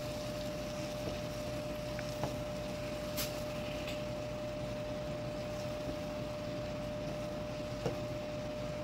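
A wooden spoon stirring chopped peppers in palm oil in a nonstick frying pan, tapping the pan lightly a few times, over a steady hum with one held tone.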